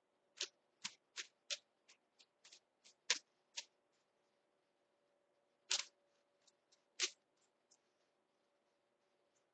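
A tarot deck being shuffled by hand: a quick run of sharp card snaps and slaps, about three a second, then a pause and two louder slaps a little past the middle.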